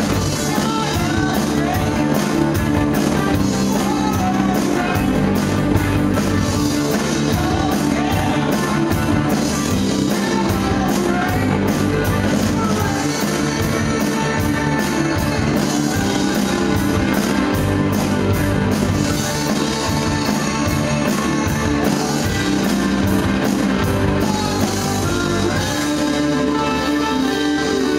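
Rock band playing live: electric guitars over bass and a drum kit keeping a steady beat. The deep bass drops away about two seconds before the end while the guitars and drums carry on.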